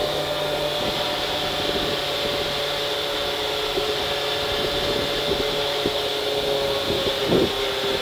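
Fiat Punto S1600 rally car's 1.6-litre four-cylinder engine running steadily in fourth gear, heard from inside the cabin, with scattered knocks and rattles from the car over the road and a brief clatter near the end.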